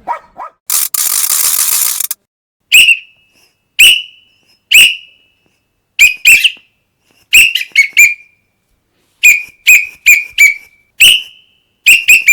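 Toy whistle blown in short, high, shrill toots, some single and some in quick runs of two to four, after a brief burst of hiss near the start.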